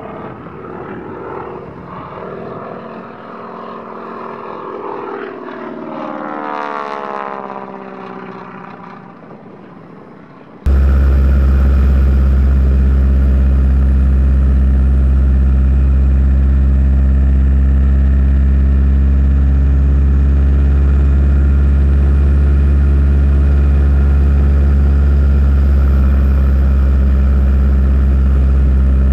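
A radio-controlled model aircraft's propeller engine flies past, its pitch dropping as it goes by. About a third of the way in, it cuts suddenly to a much louder engine running steadily at close range.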